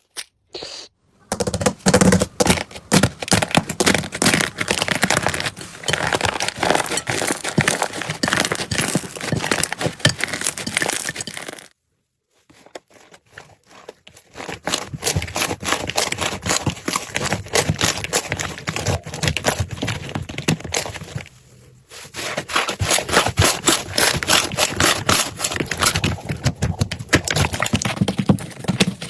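Slime being squeezed and kneaded by hand, making dense crackling and popping, with brief pauses about twelve and twenty-two seconds in.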